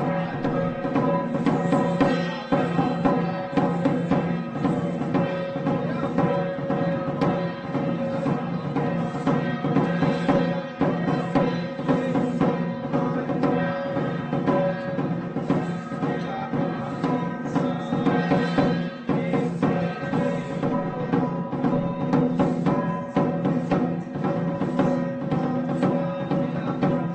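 Traditional temple festival music: drums and other percussion beating continuously under a steady, sustained melody.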